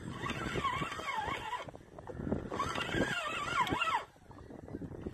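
Fishing reel's drag buzzing as a big fish pulls line off, its pitch sliding up and down with the speed of the run. It comes in two surges with a short break between them.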